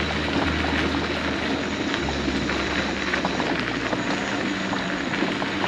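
Mobility scooter driving along a gravel trail: a steady motor hum with the tyres crunching over gravel.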